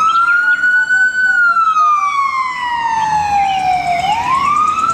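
Ambulance siren in wail mode: a single tone rising, then gliding slowly down over about three seconds, and rising again near the end.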